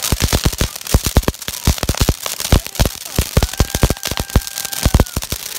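Ground-level consumer fireworks (spark fountains and a firework cake) going off: a dense, irregular run of sharp crackling pops. A faint steady whistle runs for about two seconds in the middle.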